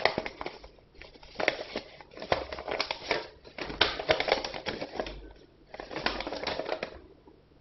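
A folded paper instruction leaflet being unfolded and handled: crinkling and rustling of the paper in about four bursts of a second or two, with short lulls between.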